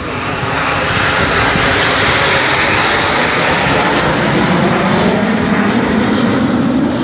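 A formation of aerobatic display aircraft flying by: a loud, steady rush of engine noise that swells about a second in, with a deeper rumble building in the second half.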